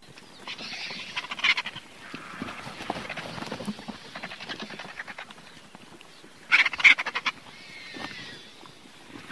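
Vultures calling: harsh, hissing calls with two louder outbursts of rapid rattling, about a second and a half in and again near seven seconds.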